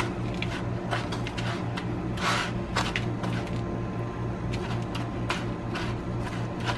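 A metal fork scraping and tapping in a plastic bowl as it rolls a cheese stick through crushed Flamin' Hot Cheetos crumbs: irregular small clicks and rustles over a steady low hum.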